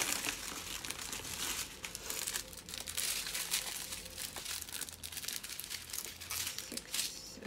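Small plastic bags of diamond painting drills crinkling and rustling as they are handled and laid out on a table, with many small clicks and taps.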